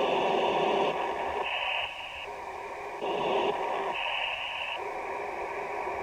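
CB radio receiver on channel 38 LSB playing a weird hissing noise from an open, dead-keyed carrier, with high tones near the top coming and going three times while the hiss dips and comes back. The operator believes the source is local.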